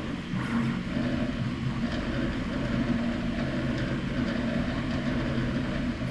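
Three 3D printers running the same print in step. Their stepper motors hum in several steady tones that shift in pitch every second or so as the print heads change moves.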